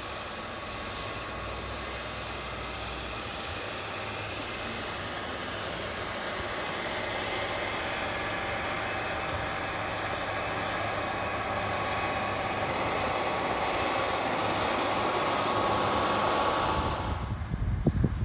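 New Holland T8 tractor's six-cylinder diesel engine running steadily under load while pulling a ripper bedder through the field, growing gradually louder as it comes closer. It cuts off suddenly near the end, giving way to wind buffeting the microphone.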